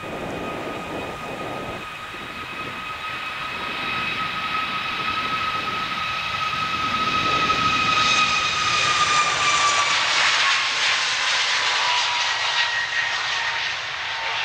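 Boeing 737 MAX 8's CFM LEAP-1B jet engines at takeoff thrust during the takeoff roll: a steady high fan whine over a broad roar. It grows louder as the jet approaches, then the whine drops in pitch as the aircraft passes, about nine seconds in.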